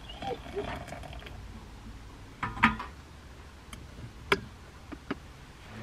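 A handful of sharp clicks and clinks in the second half, the loudest about two and a half seconds in with a brief ring, over a faint low rumble.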